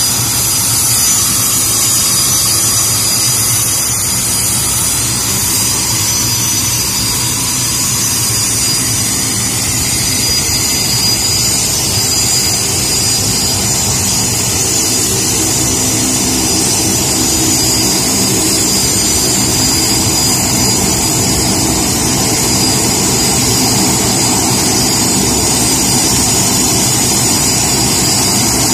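BAE Hawk jet's Rolls-Royce Adour turbofan running steadily: a loud, unchanging high whine over a low rumble.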